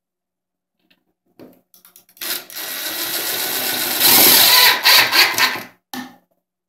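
Cordless drill driving an H5 screw through a chrome cup holder into the table's unpredrilled end panel. The motor runs steadily for about two seconds, then louder with a couple of brief stutters as the screw drives home. A short final burst follows about a second later.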